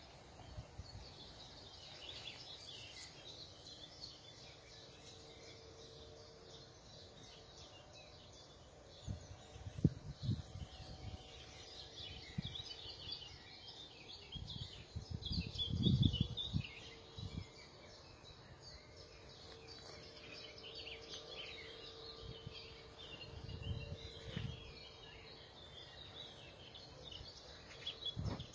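Birds singing and chirping against a steady outdoor background, with a few low rumbles, the loudest about halfway through.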